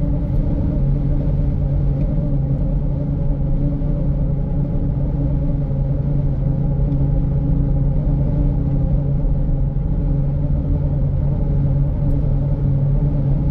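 Car driving along a highway, heard from inside the cabin: a steady low drone of engine and tyre noise with a constant hum.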